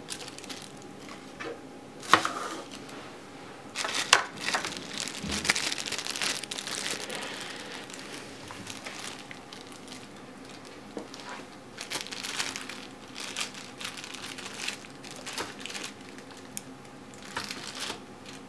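Thin clear plastic bags crinkling as they are handled and set down on a table, in two spells of crackling with sharper crackles about two and four seconds in.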